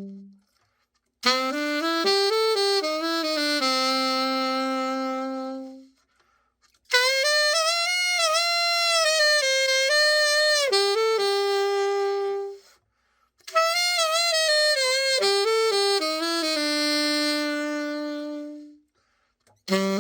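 Selmer Mark VI alto saxophone, freshly overhauled, played solo and unaccompanied in short melodic phrases, with brief pauses for breath between them.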